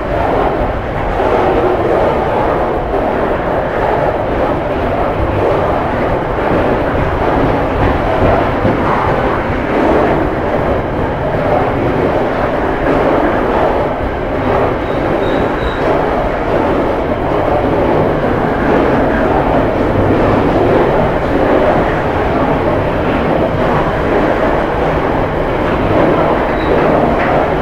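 Freight train of high-sided box wagons rolling past close by: a loud, steady rumble of steel wheels on the rails that keeps on without a break.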